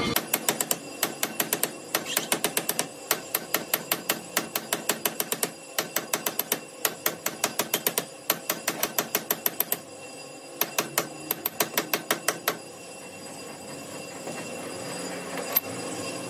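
Hammer striking metal, quick sharp blows at about four a second in runs with short pauses. The blows stop about three-quarters of the way through, with one lone strike near the end.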